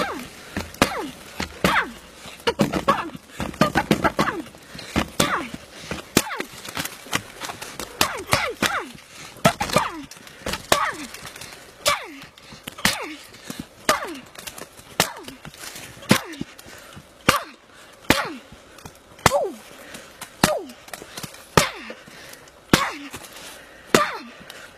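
Punches striking a tree trunk over and over, about one blow a second and quicker at first, each one knocking off bark and splinters with a sharp crack. With most blows comes a short shout that drops in pitch.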